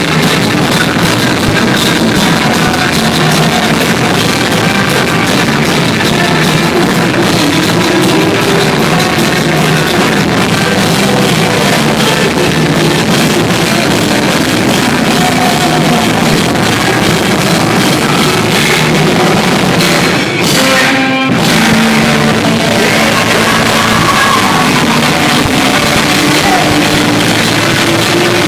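Live rock band playing loudly, with guitars and drum kit. There is a brief break in the music about twenty seconds in.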